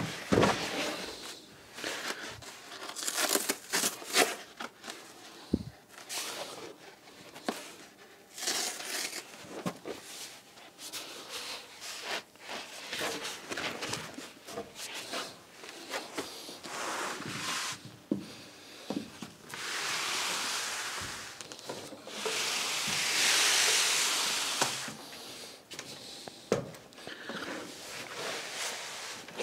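Roll of roofing underlay membrane, black felt on one side and rubbery blue on the other, being unrolled and handled on a plank floor: scattered crinkling, rustling and light knocks. Two longer rasping rustles come about two-thirds of the way through, the second the loudest.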